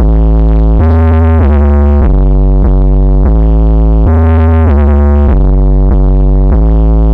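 Very loud electronic music with a heavy synthesizer bass line that shifts note every second or so, played through a picó sound system during a sound test.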